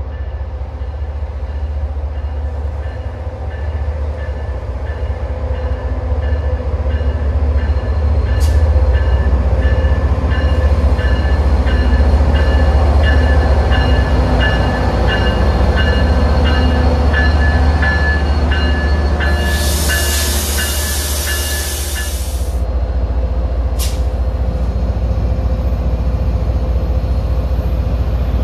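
MBTA MPI HSP46 diesel locomotive hauling a commuter train into the station: a deep engine rumble that grows louder as it draws up and passes, with a quick, even high ringing. A loud burst of air hiss comes about 20 seconds in, lasting a few seconds as the train stops, and the engine keeps idling after that.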